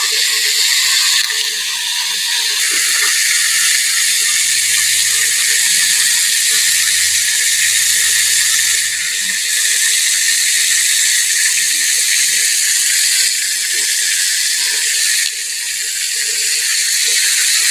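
Whole chicken frying in hot oil in a small pot: a steady, loud sizzle.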